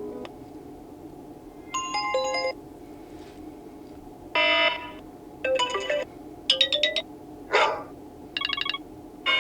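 Apple iPhone 15 Plus speaker playing built-in iOS ringtones one after another. About six brief electronic melodic snippets, each cut off after under a second with short gaps between them; one near the end is a rising sweep.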